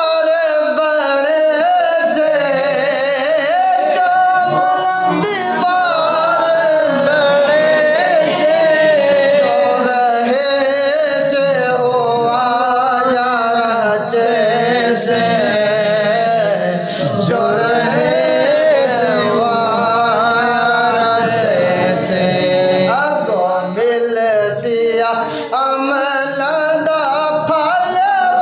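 A man singing a naat, an Islamic devotional song, in long held notes whose pitch wavers and glides.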